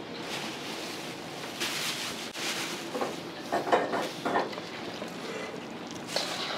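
Hands working raw pork pieces through a dry seasoning mix in a stainless steel bowl, a wet handling and rustling that swells in short louder patches about two seconds in and again between three and four and a half seconds, over a steady kitchen noise.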